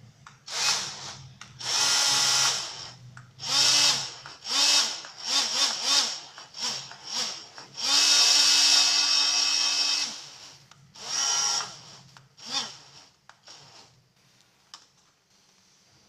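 Tiny DC motor with a small plastic propeller, run from an RC transmitter, whining in more than a dozen short bursts that each rise in pitch as the propeller spins up. The longest burst is held for about two seconds past the middle, and the bursts stop a few seconds before the end.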